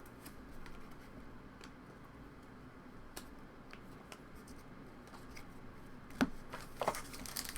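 Trading cards being handled on a table: a few scattered light clicks and taps from cards and card holders, with a little more handling near the end.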